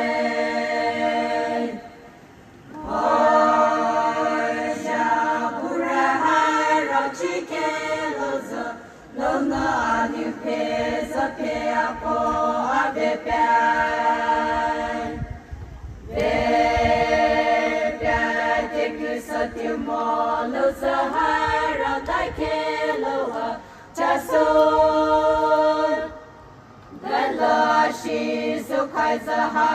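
A group of voices singing together without instruments in long, held phrases, with short breaks between the phrases.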